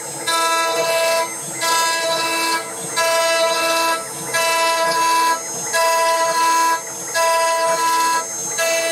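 CNC router roughing a pine board with a 6 mm two-flute ball mill: a whine of several steady tones from the machine's drives and spindle, dipping briefly about every 1.4 seconds as the head reverses at the end of each back-and-forth pass.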